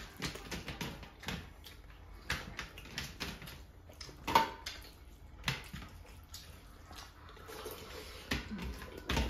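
Eating by hand: fingers mixing rice and chicken curry on steel platters, with chewing and lip smacks heard as scattered short clicks and taps.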